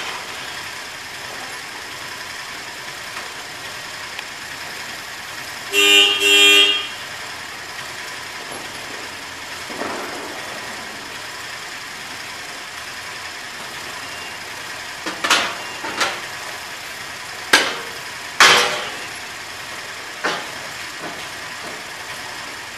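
A vehicle horn sounds two short honks about six seconds in, over a steady background noise. Several short, sharp sounds follow in the latter half.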